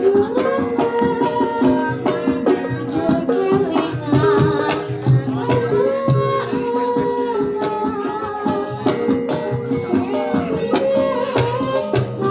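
Javanese gamelan music: kendang hand drums beating a busy pattern under held metallophone and gong tones, with a sinden's singing.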